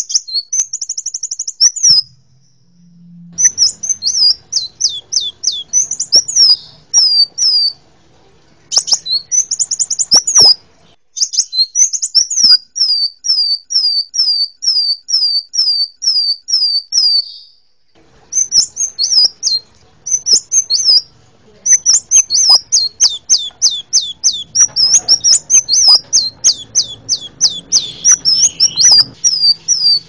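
Small songbird singing a loud, fast series of high, sharply falling notes and short buzzy trills, in long bursts broken by brief pauses. It is a recorded masteran song used to tutor cage birds.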